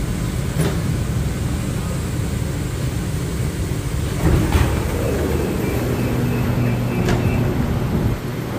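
Monorail train (Innovia Monorail 300) standing at a station, with a steady low rumble from its running equipment. A couple of thumps about four seconds in come as the doors open, followed by a few seconds of a high steady tone.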